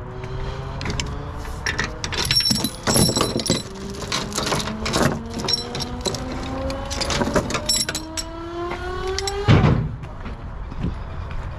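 An engine of working machinery climbing steadily in pitch for several seconds, with clanks and knocks throughout and a loud thump about nine and a half seconds in.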